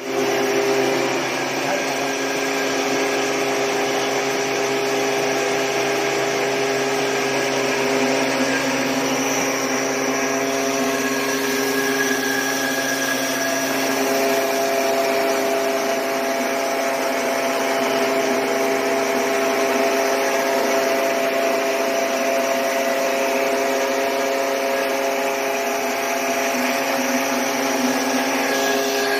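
Mini rice mill machine running steadily while hulling paddy: a constant machine whine with several steady tones over the rushing of grain and husk passing through it.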